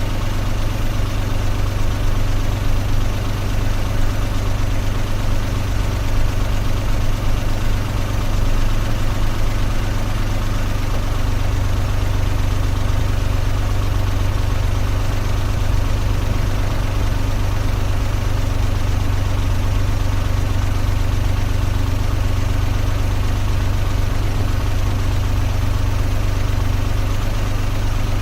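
Car engine running steadily, a continuous low drone with no changes in speed.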